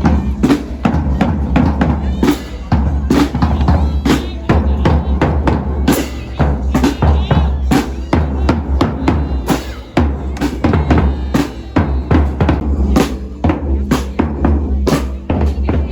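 Drums playing a continuous loud, fast beat: many sharp strikes over a deep bass-drum pulse, as from a drum band.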